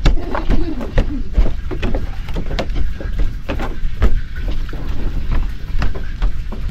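Footsteps on a walkway of lashed bamboo poles: irregular hollow knocks and clacks as the poles shift and strike each other underfoot, over a steady low rumble.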